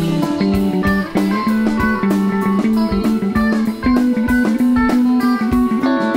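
A rock band playing live with no singing. Electric guitars pick melodic lines over held bass guitar notes, which are the loudest part, and a drum kit keeps time with steady cymbal strokes.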